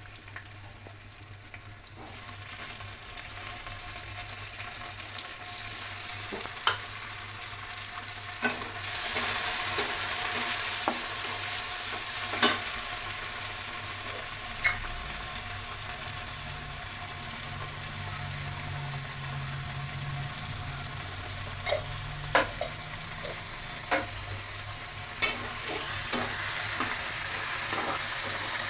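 Onion, garlic, green chili and tomato pieces frying in oil in a wok, a steady sizzle that grows louder about eight seconds in. A steel spatula stirs and scrapes through them, with sharp clicks as it knocks against the pan.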